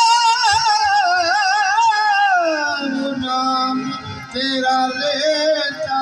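Qawwali singing with harmonium accompaniment: a male voice holds a high, ornamented line with a quick vibrato that glides down about two and a half seconds in, then a lower sung line carries on over the harmonium.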